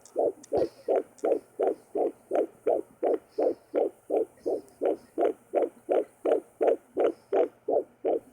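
Fetal heartbeat picked up by a Sonoline handheld fetal Doppler: a fast, even pulsing at about three beats a second.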